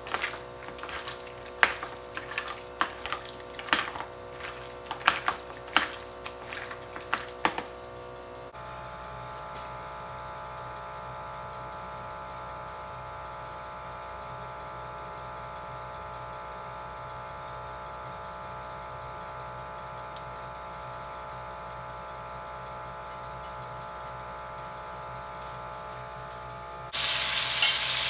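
Irregular sharp clicks and knocks of kitchen work over a steady tonal hum, then the hum alone. About a second before the end, a sudden loud sizzle as food hits hot oil in the pan.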